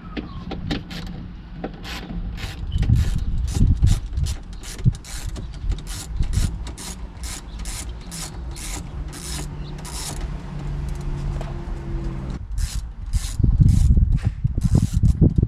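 Hand ratchet clicking in quick, evenly spaced strokes, about three a second, as a bolt is worked out. A few heavier knocks and handling noises come near the end.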